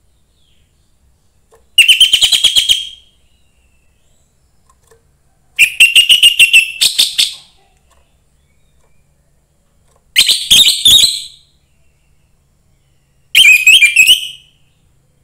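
Young orange-headed thrush (anis merah) singing: four short phrases of rapid, chattering whistled notes, each about a second long, separated by pauses of a few seconds.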